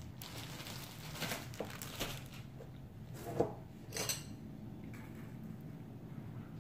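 Plastic bread bag crinkling as a slice of white bread is pulled out, then two sharp clinks of cutlery against a plate about three and four seconds in, the first with a short ring.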